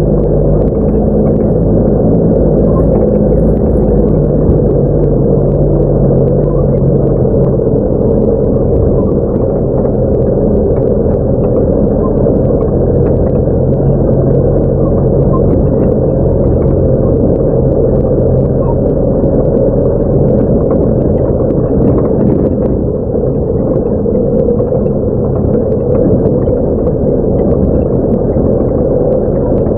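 Truck engine running steadily, heard from inside the cab as the truck drives along a rough dirt track, with light rattles and knocks from the cab.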